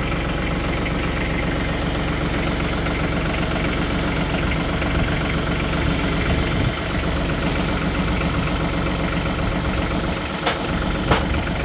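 An engine running steadily at idle, with two short sharp knocks near the end.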